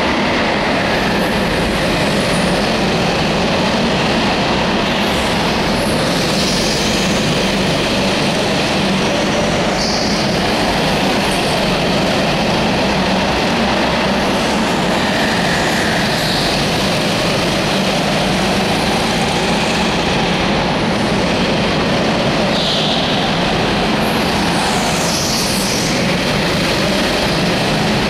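Several go-kart engines running steadily as karts lap a track in a large indoor hall. Short high tyre squeals come now and then as karts corner.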